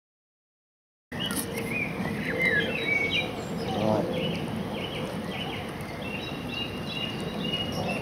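Silent for about the first second, then songbirds chirping and singing in short, repeated phrases over a steady outdoor background hiss.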